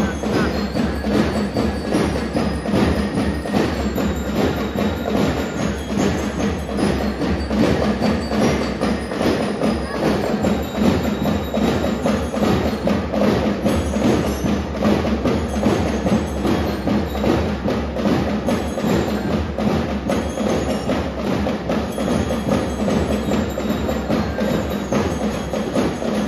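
School drum and lyre band playing: metal bell lyres ringing a tune over a steady beat of drums.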